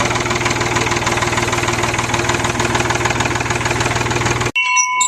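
A vehicle engine running steadily with a fast, even firing rhythm. It cuts off suddenly about four and a half seconds in.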